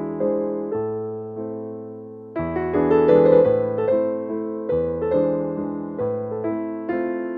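Background music: a gentle piano melody with struck notes that ring and fade, dying away and then picking up louder with a new phrase about two and a half seconds in.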